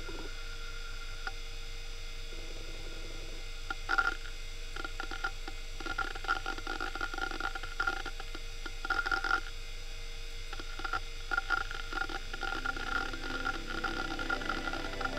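Western Digital Caviar 21200 IDE hard drive spinning with a steady hum, its heads seeking in bursts of rapid clicking and chattering as the system reads and writes to it. There is a brief lull in the seeking about two-thirds of the way through.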